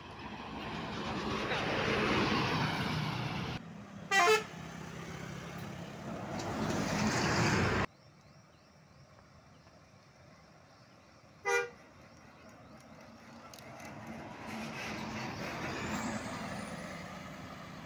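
Tour coaches driving past close by, their engine and tyre noise swelling and fading, with a short horn toot about four seconds in and another about eleven seconds in.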